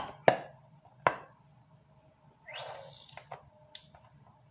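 A few sharp knocks and taps, as of objects being handled and set down, with a short rustle about two and a half seconds in.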